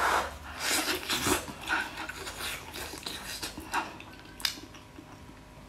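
Close-up chewing and gnawing on a braised pig's trotter: a run of irregular bites, stronger in the first couple of seconds and fainter toward the end.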